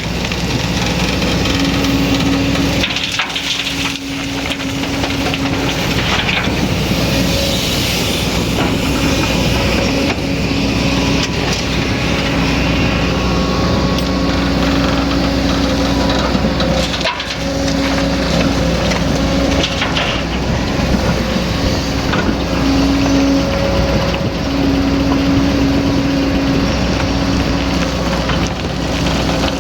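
Excavator's diesel engine running under load, its steady drone swelling and easing as the hydraulics work, over the crunch and scrape of the bucket digging soil and rock for loading a truck.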